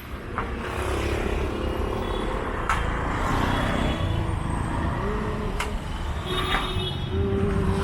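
Street traffic: motor vehicles running and passing in a steady rumble, with a wavering engine drone in the last few seconds and a couple of sharp clicks.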